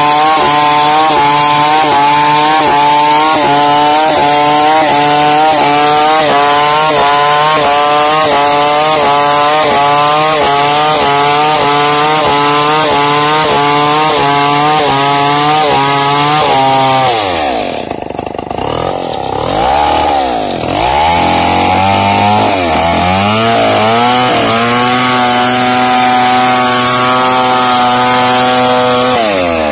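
Two-stroke chainsaw rip-cutting a log lengthwise into boards, the engine at full revs with its pitch rising and falling rhythmically as the chain bites. A little over halfway the revs drop and waver low for a few seconds, then climb back to a steady full-throttle cut.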